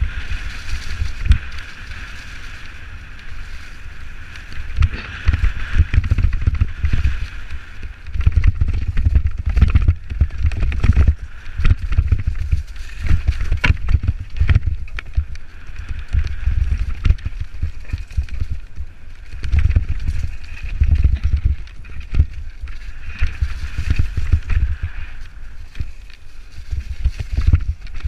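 Canyon Strive enduro mountain bike descending a rough dirt singletrack at speed: a steady rush of tyre noise with frequent irregular knocks and rattles as the bike hits bumps, under heavy wind rumble on the camera's microphone.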